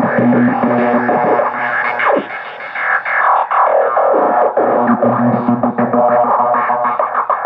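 Electronic music played live over a sound system: dense synthesizer tones with sweeping pitch glides, thinning briefly about two seconds in.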